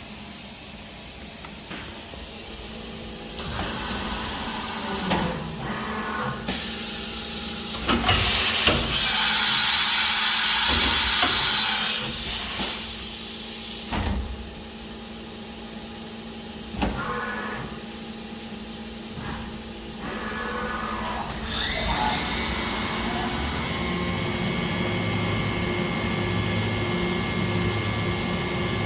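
1999 Makino V33 CNC vertical machining centre in operation: clunks and loud hissing bursts of air, loudest for a few seconds about a third of the way in. About two-thirds through, a whine rises as the spindle spins up, then runs as a steady high whine over a low hum.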